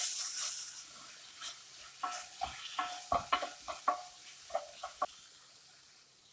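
Spoon scraping and stirring ground spices and onions frying in coconut oil in a pan on low heat: a brief sizzle at the start, then a run of short scrapes and clinks against the pan, fading out near the end.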